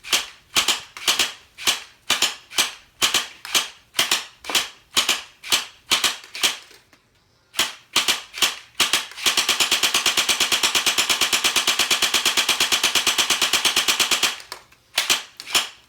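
Battery-powered toy Glock 18 blaster firing single shots about two a second, then a rapid full-auto burst of about five seconds, then single shots again near the end.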